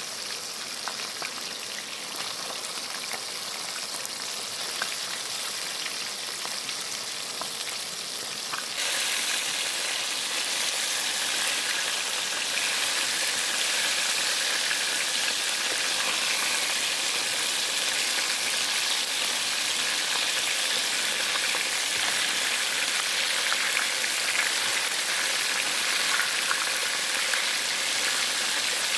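Chicken wings deep-frying in hot oil: a steady sizzle with fine crackling. About nine seconds in it abruptly becomes louder and brighter, then holds steady.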